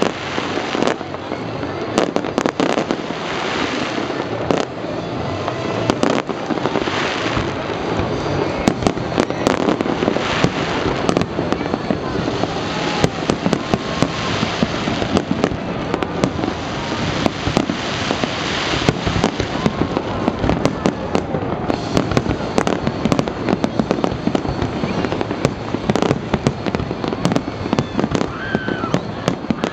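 Aerial fireworks display: many shells bursting in quick succession, a dense, unbroken run of sharp bangs over continuous crackling.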